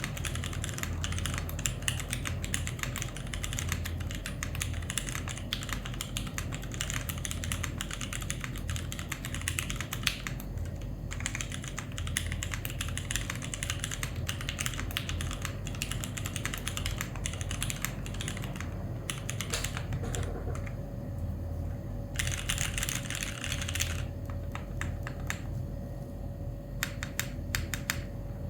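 Typing on a 60% mechanical keyboard with vintage Cherry MX Clear tactile switches on an isolated top-mount aluminium plate, with GMK keycaps: a steady run of key clicks. There are short lulls about ten and eighteen seconds in, and a dense flurry about twenty-two seconds in.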